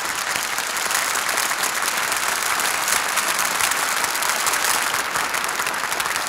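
Studio audience applauding steadily at the end of a song.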